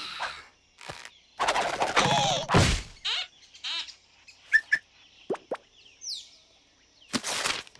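Cartoon sound effects: a few short noisy swishes with a wobbling pitch, then a heavy thud of a body hitting the ground about two and a half seconds in. A few small chirps and falling plops follow, with a last swish near the end.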